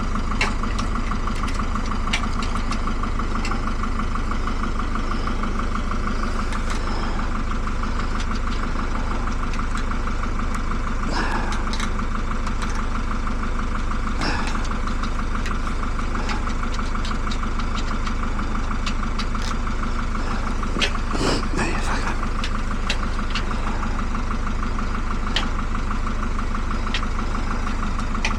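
A motor running steadily with an unchanging hum, with a few light clicks and taps here and there.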